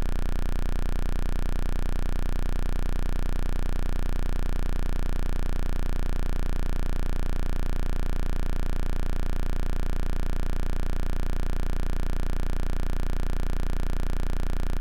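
Loud, steady electronic buzz at one fixed pitch, unchanging throughout, that switches on and off abruptly.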